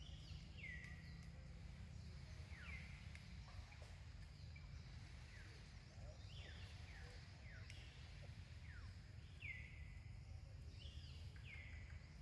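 Faint bird calls: short whistled notes that slide down in pitch, repeating about once or twice a second, over a low steady rumble.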